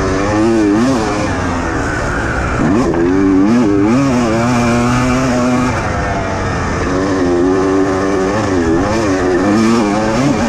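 Motocross bike engine heard close from the rider's helmet camera, revs rising and falling again and again with throttle and gear changes, held steady for a moment near the middle, over rushing wind.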